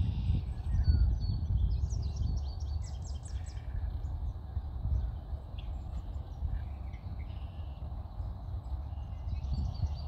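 Wind rumbling on the phone's microphone, with small birds chirping above it: a quick run of high chirps about two to four seconds in, and more near the end.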